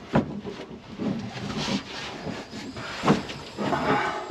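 Air rushing out of a 30-gallon RV water tank through its opened hose line, in uneven hissing spells, with a few knocks from handling the fittings.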